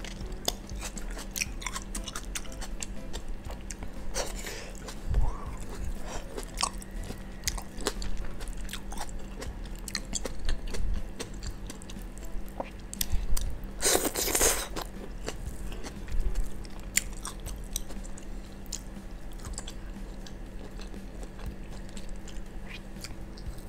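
Close-miked chewing and biting as a person eats tomato, stir-fried greens and squid with rice, with many small mouth clicks. A louder, noisy sound about a second long comes roughly fourteen seconds in.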